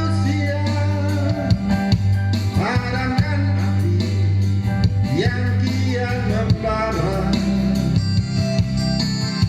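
Music: an Indonesian pop song with guitar accompaniment and a steady bass, its melody line sliding up and down between notes.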